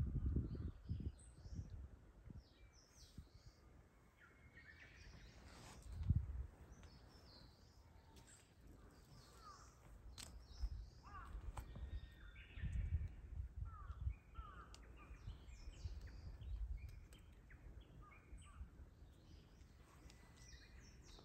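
Outdoor ambience of wild birds chirping and calling in short, scattered notes throughout, over an intermittent low rumble.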